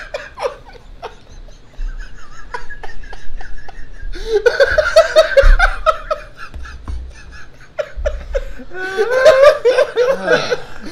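Several men laughing hard together in breathy bursts, swelling into louder rounds of laughter about four seconds in and again near the end.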